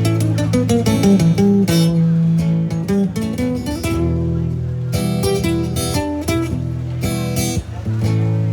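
Acoustic guitar playing an instrumental passage: a run of picked notes stepping down in pitch in the first second or so, then strummed chords.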